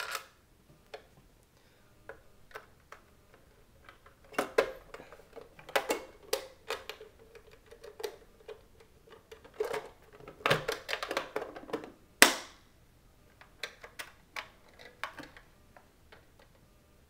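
Halo paintball hopper's plastic shell being handled and a screw put in with a small Phillips screwdriver: scattered plastic clicks and taps in irregular clusters, with one sharp, loud click about twelve seconds in.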